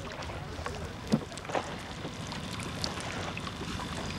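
Water splashing and sloshing as a fish is let go by hand into the water, with many small splashes over a steady rushing background.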